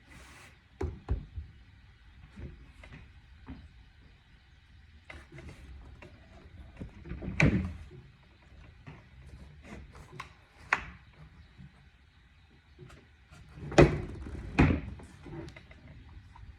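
Irregular knocks and clunks as an old accordion's wooden body and parts are handled and taken apart, with two loud thumps near the end.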